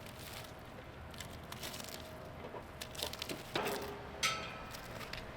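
Scattered clicks and knocks of tools and parts being handled, with a sharper metallic clank a little over four seconds in that rings briefly.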